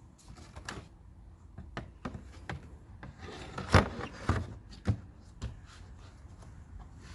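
Scattered clicks and knocks of hand tools and parts being handled during reassembly work on a car engine, with a louder knock and a brief rustle a little over halfway through.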